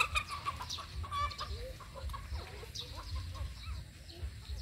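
Short, high-pitched animal squeaks and calls, some rising and some falling in pitch, coming quickly one after another, with a harsher call about a second in.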